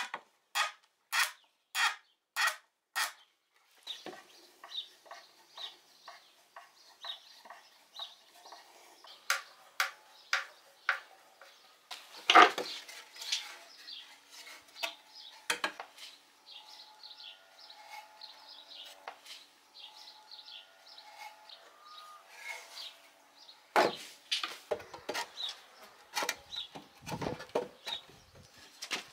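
A hand screwdriver driving a screw through a metal corner bracket into a wooden trestle jack, with sharp clicks about every two-thirds of a second for the first three seconds. Then scattered knocks and clatter as the wooden jack is handled and set down, with a loud knock about twelve seconds in and another about twenty-four seconds in.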